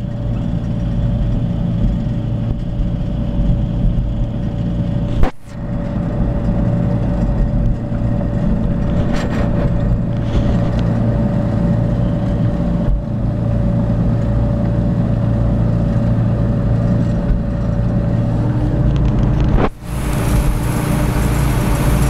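Ford 7610 tractor's four-cylinder diesel engine running steadily under load while pulling a three-furrow plough, heard from the cab. The sound briefly drops out twice, at about five seconds and near the end.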